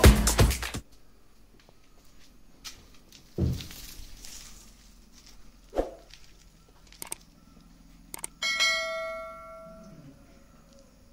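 Electronic dance music cuts off in the first second. After that come a few scattered knocks and a thud, then two quick clicks and a bell ding that rings out and fades over about a second and a half: the click-and-bell sound effect of a subscribe-button animation.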